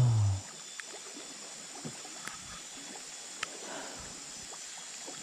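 River sounds in light drizzle: water trickling and rain falling, a steady quiet hiss with scattered faint ticks. A short voiced "eh" at the very start.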